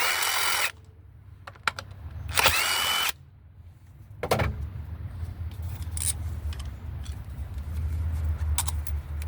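A power driver with a 10mm socket spins out the ignition-coil hold-down bolts in two short runs, each under a second, about two seconds apart. Light clicks and rattles of the loosened bolts and tool follow.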